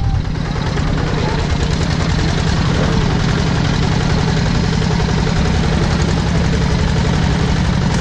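Two-wheel walking tractor's single-cylinder diesel engine running steadily under load as it pulls a loaded trailer, with a loud, rapid, even beat.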